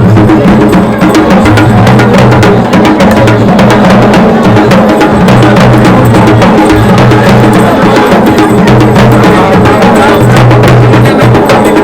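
Music with loud, fast, dense percussion over sustained low notes.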